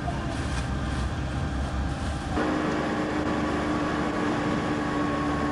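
A low rumble, then an abrupt change about two and a half seconds in to a bus running along the road, heard from inside the cabin: steady engine and road noise with a steady whine over it.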